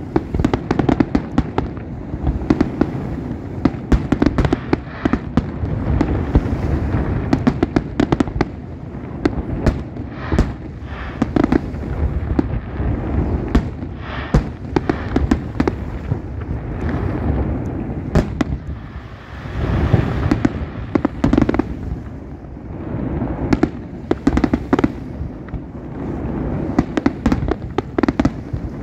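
Fireworks display: rapid, overlapping bangs of aerial shells bursting over a continuous low rumble, easing off briefly about two-thirds of the way through before building again.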